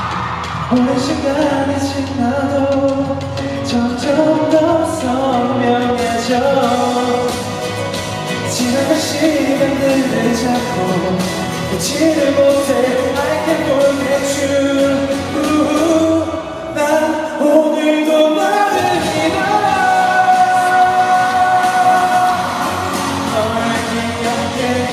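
A male singer singing a pop song live into a handheld microphone over instrumental accompaniment. The bass drops out briefly about two-thirds of the way through.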